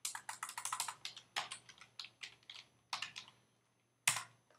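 Typing on a computer keyboard: a quick run of keystrokes in the first second, a few scattered keystrokes after, and one louder key press about four seconds in.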